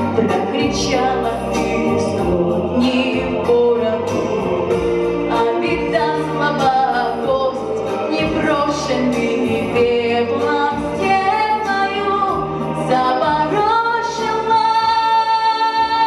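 A girl sings solo through a microphone over an instrumental accompaniment, her voice gliding through the melody and holding one long high note near the end.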